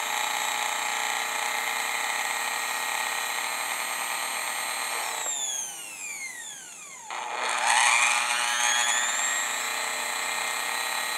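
Rewired Westinghouse turtle-shell sewing machine motor running on its foot controller with a steady high whine. About five seconds in it coasts down, falling in pitch, then speeds back up a couple of seconds later and runs steadily again. It is running quietly, being run in so the fresh grease in its wicks works its way in.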